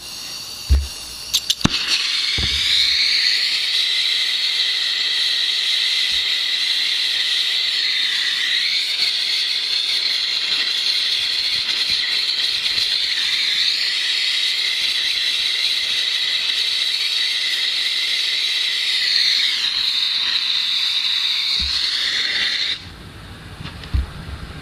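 A few clicks of a striker, then a plumbing gas torch flame hissing steadily for about twenty seconds, with a slight wavering whistle in the hiss, before it cuts off suddenly near the end.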